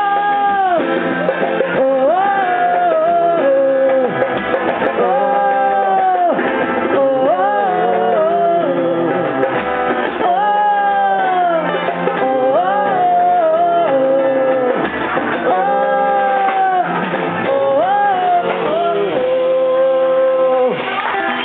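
A live percussion band playing, with a voice singing a melody over the drums.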